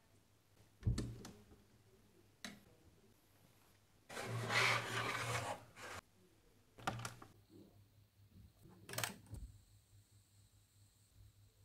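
Plastic LEGO parts being handled: a few sharp clicks and knocks of bricks, with a louder rustling scrape of plastic pieces lasting about two seconds near the middle.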